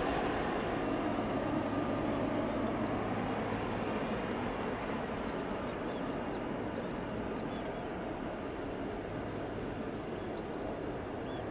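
Boeing 777-300ER's GE90 turbofan engines running at low power as the airliner rolls out after landing, a broad rumble fading slowly as it moves away, with short high chirps scattered over it.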